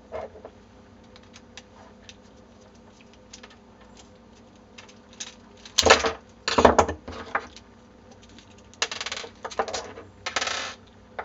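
Metal tools and small parts clinking and clattering against a workbench and an acrylic 3D-printer extruder, as a screw with a nut behind it is worked loose with slip-joint pliers and a screwdriver. Faint small clicks, a loud sharp clatter a little past halfway, then two short scraping sounds near the end.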